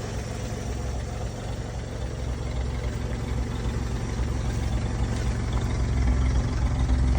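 Engine of a 1961 Chevrolet Apache 60 welding truck idling steadily and pretty smooth, growing somewhat louder over the last couple of seconds.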